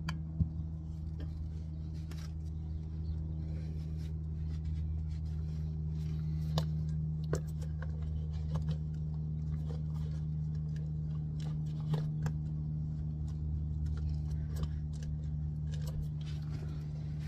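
Hands working a rubber steering-rack bellows boot into place, making scattered light clicks and rubs, over a steady low hum.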